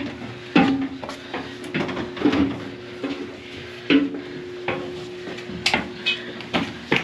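Footsteps clanking and knocking on a warship's metal steps and deck, a sharp knock every half second to a second, over a steady hum.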